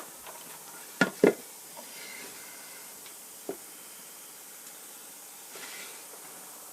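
Two sharp knocks in quick succession about a second in, then a lighter knock a couple of seconds later, over a steady faint hiss: parts and tools being set against the slide assembly of an old metal shaper as it is blocked up during disassembly.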